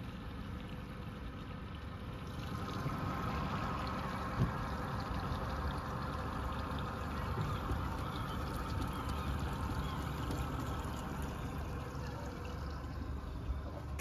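A small boat under way: steady water noise along the hull over a low rumble, growing a little louder a few seconds in, with one small knock about four seconds in.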